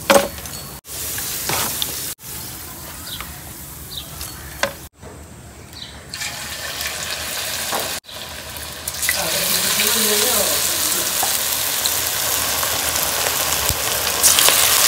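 Pakora batter deep-frying in hot ghee in an aluminium karahi, a steady sizzle of bubbling oil. The sizzle is cut short a few times in the first half, grows louder from the middle on, and rises again near the end as fresh batter is dropped into the oil.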